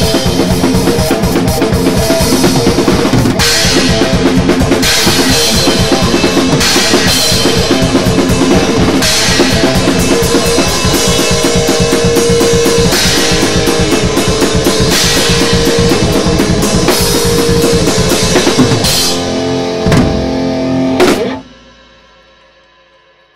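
Thrash metal band playing: electric guitar over a drum kit with rapid bass-drum strokes and cymbals. Near the end it hits a couple of final accents and stops abruptly about two seconds before the close, leaving a ring that fades out.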